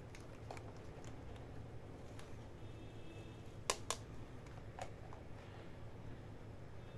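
Small hollow plastic toy pieces handled and set down: scattered light clicks and taps, with two sharp clicks in quick succession a little past the middle.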